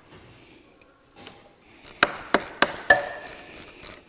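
Hand-assembly noise on a small generator engine: light rubbing and handling, then four sharp clicks and knocks of parts and tools in quick succession about two seconds in. The last knock rings briefly, like metal.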